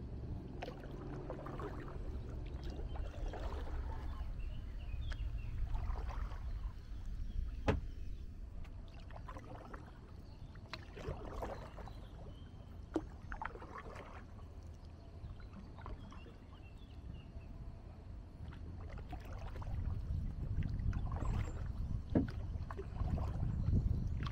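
Kayak paddle blades dipping and pulling through calm river water, a soft splash every second or two, with a few seconds' pause in strokes midway, over a steady low rumble.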